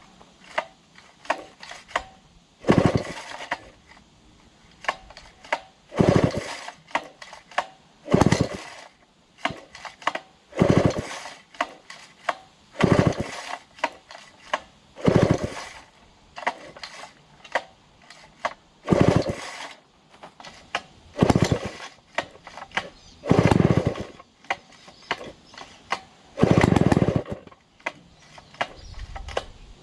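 Vintage Be-Bo 125cc two-stroke chainsaw being pull-started over and over. Each pull makes a short loud burst, about ten pulls two to three seconds apart, with small clicks and rattles between them.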